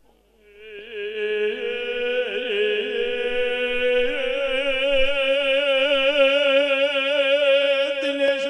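A single long sung note, held with a steady wavering vibrato, rising in from near silence about half a second in: devotional chanting in a dhun.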